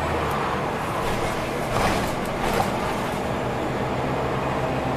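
Inside a moving Scania OmniLink CL94UB city bus: steady engine drone with road and tyre noise, the deepest part of the drone dropping away just after the start. A brief louder rush of noise comes about two seconds in.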